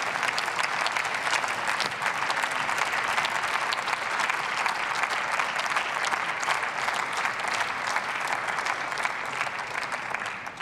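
Members of parliament applauding: dense, steady clapping from many people that fades out near the end.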